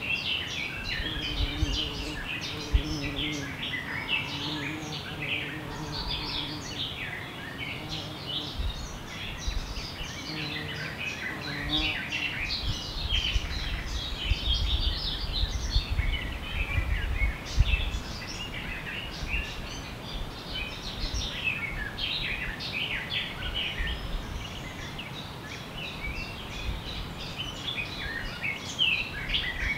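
Several forest songbirds chirping and singing at once, a dense chorus of short, quick calls with no single bird standing out, over a low background rumble.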